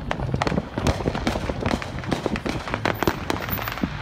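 Many consumer fireworks and firecrackers going off around a neighbourhood: dense, overlapping bangs and pops at irregular intervals, several a second.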